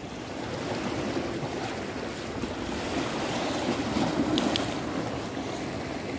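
Sea waves washing against the rocks of a jetty, a steady rushing noise, with a couple of faint clicks a little after four seconds in.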